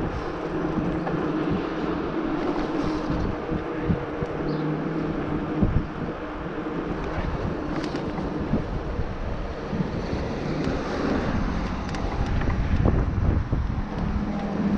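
Hardtail e-bike riding over a forest trail: wind buffeting the action camera's microphone, with tyres rolling and short knocks and rattles from bumps. A low steady hum runs underneath.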